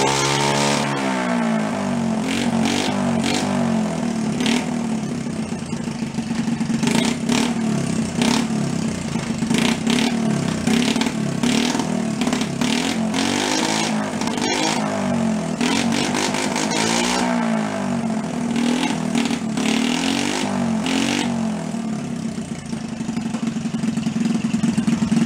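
Honda Trail 50 mini bike's small four-stroke single-cylinder engine running and being revved up and down repeatedly, settling to a steadier run near the end.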